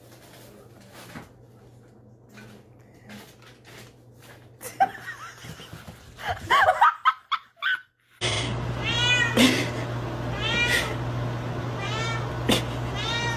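A cat meowing over and over, about one meow every second and a half, over a steady low hum. Before that comes a quieter stretch with scattered knocks and a few short pitched sounds, then a moment of silence.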